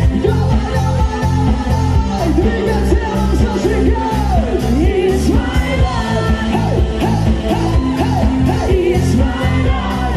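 A band playing a dance-pop song: a voice singing a sliding melody over a steady drum beat and thick bass, with some yells.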